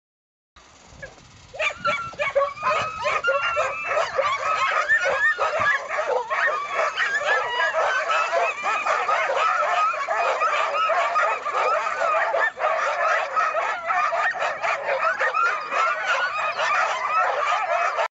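A team of harnessed huskies hitched to dog sleds barking, yelping and howling all at once, a loud, unbroken chorus of many dogs that starts about a second in. It is the typical clamour of sled dogs straining in harness, eager to be off.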